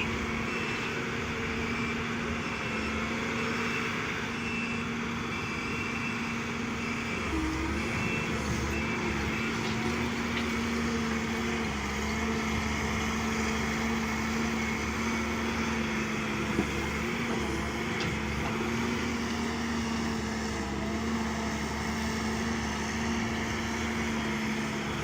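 Heavy diesel construction machinery running steadily, a constant engine drone with a hum that dips slightly in pitch a few times.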